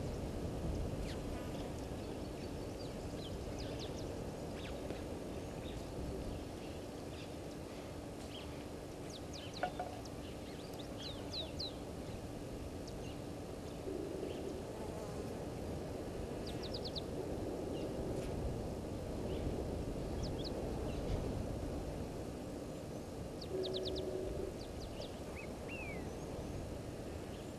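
Waterhole ambience in the African bush: small birds chirping in quick clusters of three to five notes every few seconds, over a steady low background noise.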